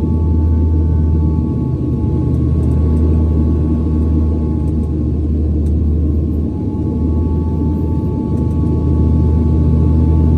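Airliner cabin noise on final approach with the landing gear down: a loud, steady rumble of engines and airflow, with two faint steady tones above it, the lower of which fades out for a few seconds in the middle.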